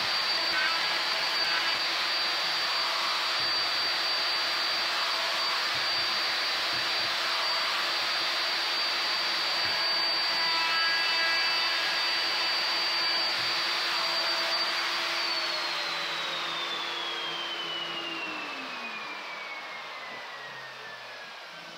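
Electric plunge router with a dust-extraction vacuum running at full speed while cutting around a wooden template: a steady high whine over a rushing hiss. About two-thirds of the way in the motors are switched off, and the whine falls in pitch and fades as they spin down.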